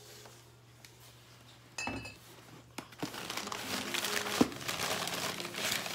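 A ceramic mug clinks as it is set down, then white packing paper crinkles and crackles steadily as the next piece is unwrapped.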